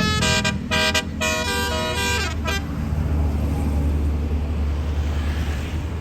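Tour bus's Basuri telolet musical horn playing a quick run of short, changing notes for about two and a half seconds, then stopping, leaving the bus's diesel engine running as a steady low rumble.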